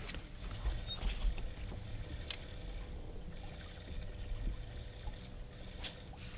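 Ambience aboard a small fishing boat on the water: a low, uneven rumble of wind and water against the hull, under a faint steady hum. A few light clicks or taps are heard about two seconds in and again near the end.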